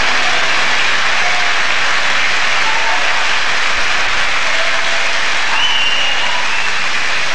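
Concert audience applauding and cheering steadily, with a few short whistles.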